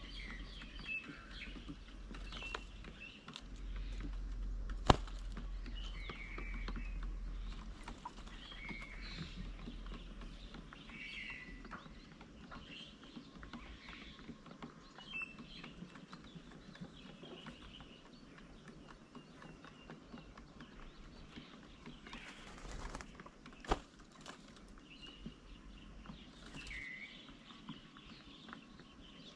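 Birds chirping and calling in short, scattered notes, with two sharp clicks, the louder one about five seconds in.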